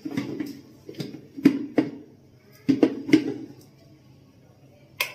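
Steel mixer-grinder jar and lid clinking and knocking as they are handled and set onto the grinder base, a cluster of short knocks over the first few seconds and one sharp click near the end; the motor is not running.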